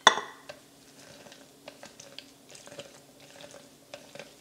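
Lemon halves being pressed on an OXO plastic citrus juicer: a sharp clack just at the start, then faint squishing and small plastic clicks.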